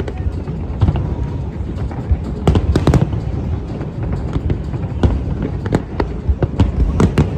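Aerial fireworks bursting in a rapid, irregular string of sharp bangs and crackles over a steady low rumble.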